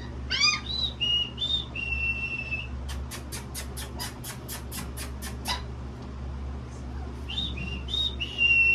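A person whistling to call puppies: short rising notes and held steady whistles near the start and again near the end. In between comes a quick run of about a dozen short sharp clicks, roughly four a second.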